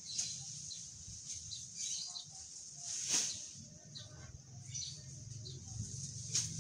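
Odot (dwarf elephant grass) being harvested by hand: sharp snaps of stalks being cut or broken, the loudest about three seconds in, amid rustling leaves. Birds chirp faintly in the background.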